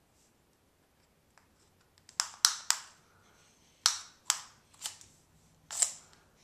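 Small retractable tape measure: a string of sharp snaps and short zips as its tape is pulled out and springs back into the case, in three quick groups.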